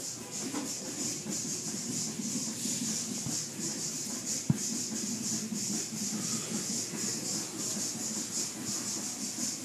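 Automatic car wash heard from inside the car: a spinning cloth brush slapping and scrubbing against the window and side of the car under water spray, a steady hiss that pulses in a quick, even rhythm. A single sharp knock about four and a half seconds in.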